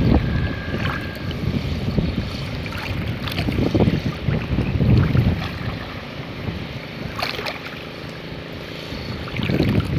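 Muddy lake water sloshing and splashing around a man wading waist-deep as he hauls in and throws a cast net, with wind rumbling on the microphone. The sloshing swells about four seconds in and again near the end.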